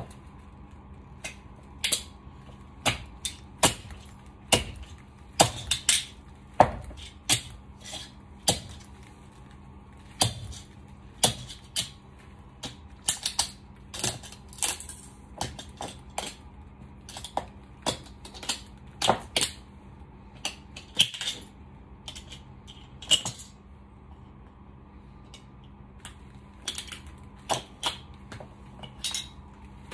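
Stiletto heels on a tile floor stepping on and crushing small toy cars: a run of sharp, irregular clicks and cracks with short pauses between them.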